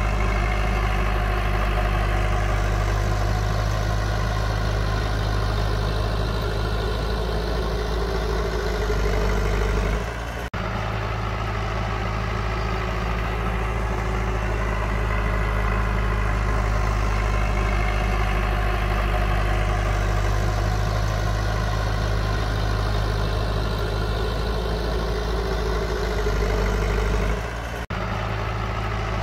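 Heavy diesel engine of earthmoving machinery running steadily. The sound drops out briefly twice, about ten seconds in and near the end.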